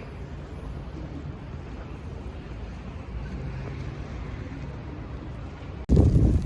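Steady low rumble of a ferry's engines. About six seconds in it breaks off abruptly and loud wind starts buffeting the microphone.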